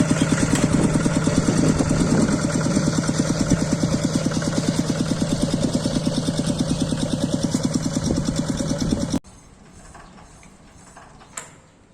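Small single-cylinder diesel engine of a water pump or hand tractor running steadily with an even, rapid firing beat. Its sound cuts off abruptly about nine seconds in, leaving only faint background.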